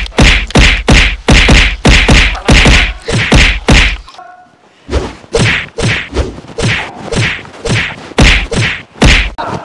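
A rapid run of punch and slap impacts, about three blows a second, with a short pause about four seconds in before the blows resume.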